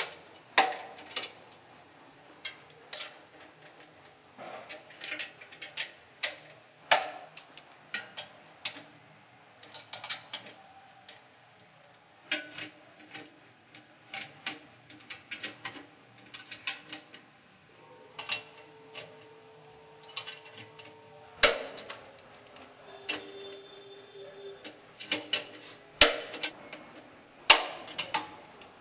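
Ratcheting torque wrench clicking in quick irregular runs as the M12 strap nuts of a Grundfos SP submersible pump are tightened in steps, with a few louder sharp clicks in the second half.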